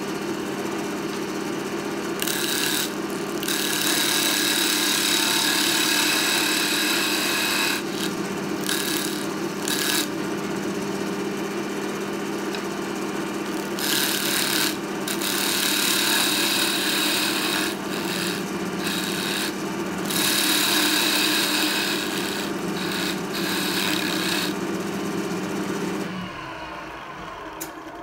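Wood lathe motor running with a steady hum while a turning tool cuts the spinning wooden chisel-handle blank down to size in repeated passes, each a hissing scrape lasting a few seconds. The lathe is switched off near the end and the hum stops.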